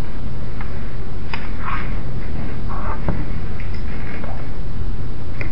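Steady low hum of room and recording noise, with a few faint clicks and soft, indistinct sounds.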